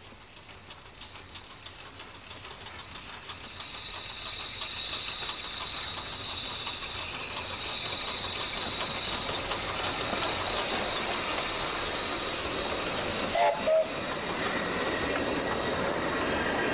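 Garratt steam locomotive No. 138 drawing near and passing close by, with a steady hiss of steam, then its carriages rolling past with a clatter of wheels. The sound grows louder over the first few seconds. Two short loud bangs come about three-quarters of the way through.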